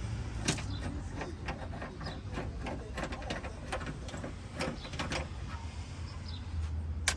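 Irregular clicks and knocks of hand tools and plastic trim being worked on a car's trunk lid while a part is taken off, over a steady low hum.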